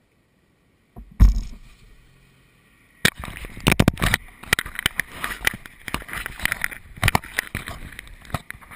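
Camera handling noise: a thump about a second in, then from about three seconds on a run of scrapes, knocks and cloth rubbing right against the microphone as the camera is grabbed on its mount.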